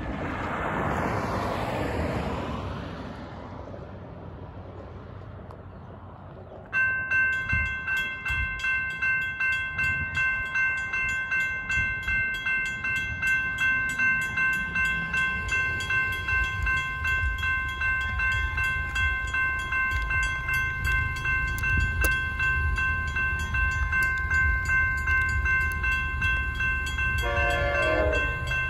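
A vehicle passes and fades. About seven seconds in, a railroad crossing bell starts ringing suddenly, a steady run of rapid, evenly spaced dings as the crossing activates. Near the end, the approaching Amtrak San Joaquins locomotive sounds a short horn blast in the distance.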